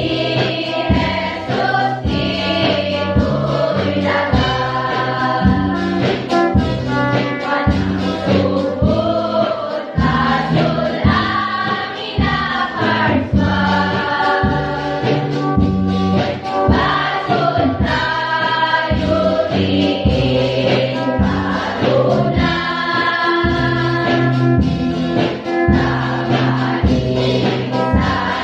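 A mixed choir of teenage boys and girls singing a Christian song together, over an instrumental accompaniment with a steady beat.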